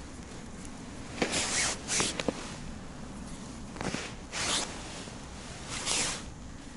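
Synthetic winter jacket sleeves swishing in short rubs, about six of them, as the arms move handling a small ice-fishing rod, with a couple of faint sharp clicks about two seconds in.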